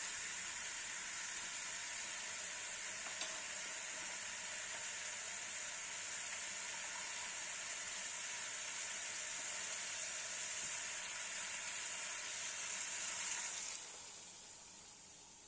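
Chicken wings sizzling steadily in a pan of oil and sauce. The sizzle fades away near the end.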